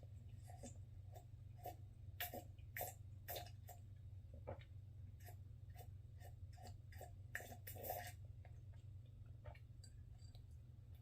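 Faint mouth sounds of someone sipping and gulping hot coffee: a run of short, wet clicks and swallows, irregular, roughly two a second, over a steady low hum.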